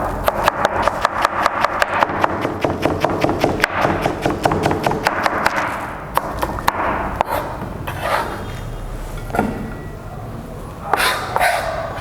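Kitchen knife chopping rapidly on a cutting board, an even run of about five strokes a second for some six seconds, then a few slower, scattered cuts and the rustle of the cut pieces being handled.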